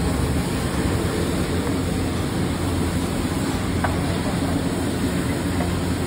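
Steady low rumble of a stove under a large flat griddle as chopped onions, tomatoes and green chillies are stirred and fried on it, with a single light spatula click about four seconds in.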